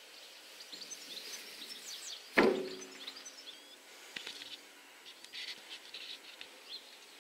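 Small birds chirping faintly in short high calls, with one sharp clank that rings briefly about two and a half seconds in and a few softer knocks after it.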